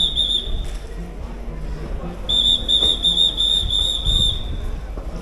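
A pea whistle blown in a warbling trill: a brief blast right at the start, then a longer blast of about two seconds from a little past two seconds in. It sounds while a train is moving in along the platform, typical of a railway signalling whistle, over a low steady rumble.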